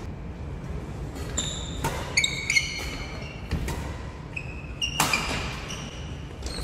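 Badminton rally: rackets strike the shuttlecock in a string of sharp hits, mixed with high squeaks of court shoes on the gym floor.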